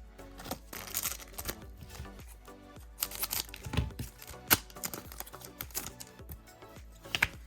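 A trading card booster pack is torn open, with crinkling wrapper and cards rustling in irregular crackles, over background music.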